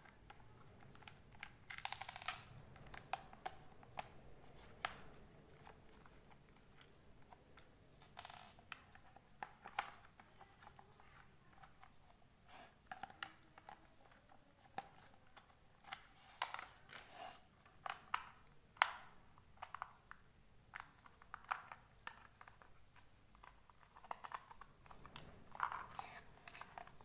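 Faint, irregular light clicks and taps of small hand work on a plastic hot glue gun: a screwdriver backing screws out of its housing, the screws and gun set down on a wooden table, and the housing handled near the end.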